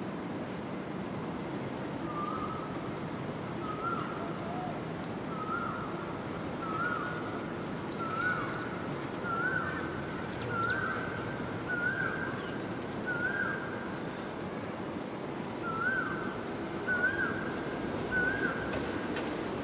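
A bird calling in a series of about twelve short whistled notes, roughly one a second, each rising then dropping off, the series creeping slowly upward in pitch with a short pause about two thirds of the way through, over a steady rushing background.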